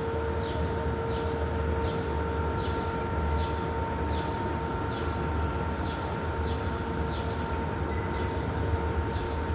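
Steady low mechanical hum with a few constant tones, with short high falling chirps repeating about twice a second.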